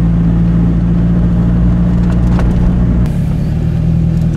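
Car engine heard from inside the cabin, a steady drone at constant revs while cruising, shifting slightly about three seconds in.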